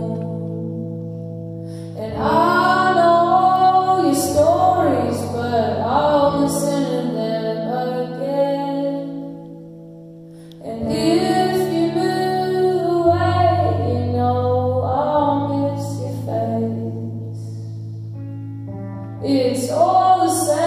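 A woman singing a slow song over a Telecaster-style electric guitar, whose held chords ring steadily under the voice. The singing comes in about two seconds in, pauses around ten seconds while the guitar rings on, then returns, with another phrase near the end.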